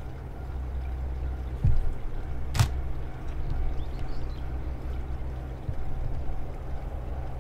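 Steady low outdoor rumble, with a brief low thump just under two seconds in and a single sharp click about two and a half seconds in.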